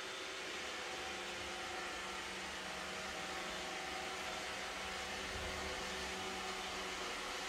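Steady mechanical hum with a faint hiss and a few fixed tones underneath, unchanging throughout; nothing else stands out.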